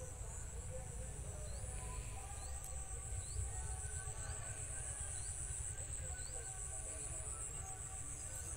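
Field crickets trilling in a steady high-pitched chorus, with faint short chirps repeating every half second or so and a low rumble underneath.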